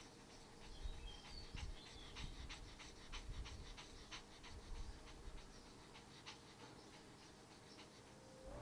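A small dog, a Pomeranian, panting quickly, with faint irregular ticks and soft thuds.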